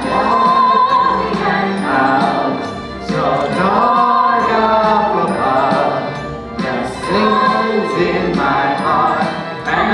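A group of voices singing with musical accompaniment, in phrases that rise and fall in loudness.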